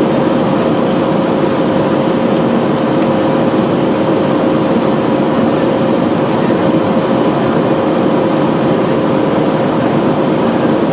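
Steady cabin noise of a Boeing 737-300 in flight after takeoff: rushing air and the drone of its CFM56-3 jet engines, with a constant hum.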